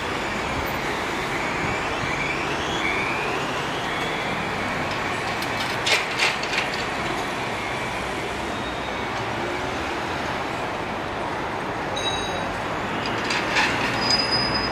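A vehicle in motion: a steady rushing noise with whines that glide up and down in pitch, and a short cluster of clicks and knocks about six seconds in and again near the end.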